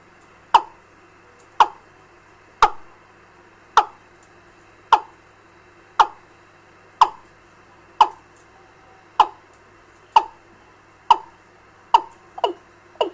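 Recorded 'gà' bird lure call played through a bird-trapping amplifier's loudspeaker. Short, sharp calls, each dropping quickly in pitch, repeat about once a second, then come faster in close pairs near the end.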